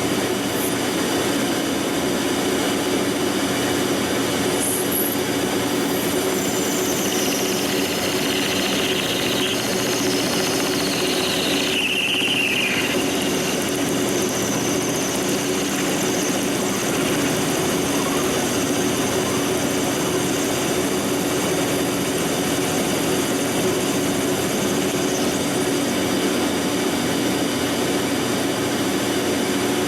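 Monarch lathe taking a cut on a hardened steel tractor pinion shaft, with the insert screeching against the hard metal over the steady running of the machine. High squeals slide down in pitch around the middle. The hardened, interrupted cut is wearing out the cutting inserts.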